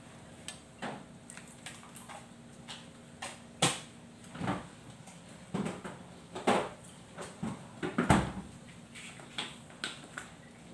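Irregular knocks and clicks of kitchen handling around a wok where tomato paste is frying in oil, with the loudest knocks a third of the way in, just past halfway and about three quarters through.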